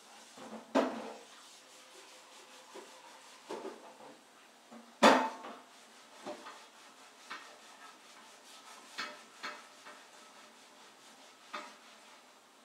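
Dishes knocking and clinking: a dozen or so light, irregular knocks, the two loudest about a second in and about five seconds in.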